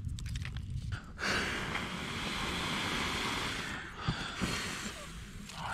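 A person blowing steadily on smoldering tinder to coax a campfire into flame: one long breath of about two and a half seconds starting about a second in, then a weaker stretch of blowing after it.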